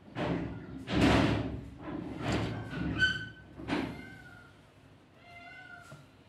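Several loud, short rushes of noise in the first four seconds, the loudest about a second in, then a cat meowing faintly near the end.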